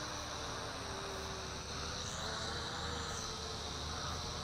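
Huanqi HQ H899 quadcopter's motors and propellers buzzing steadily as it flies high and far off, with a slight swell in pitch about two seconds in.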